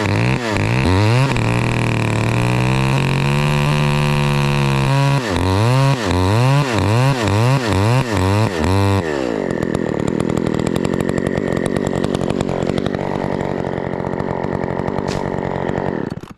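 Two-stroke chainsaw revved in quick throttle blips, held at full throttle for a few seconds, then blipped again while the arborist chunks the tree stem down. About nine seconds in it drops to a steady idle, and it shuts off just before the end.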